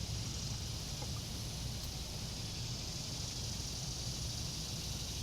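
Steady outdoor background: a low rumble with an even, high-pitched hiss above it, and no single event standing out.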